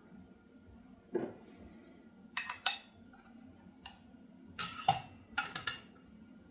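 Metal parts being handled, knocking and clinking against each other: a dull knock about a second in, then a few sharp clinks around the middle and again near the end.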